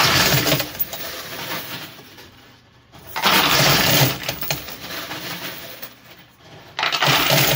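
Quarters clattering and cascading off the front of a coin pusher machine's playfield, in three loud bursts about three and a half seconds apart as the pusher shelf cycles, with lighter coin clinks in between.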